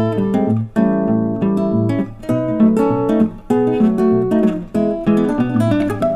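Background music: a strummed and plucked acoustic guitar.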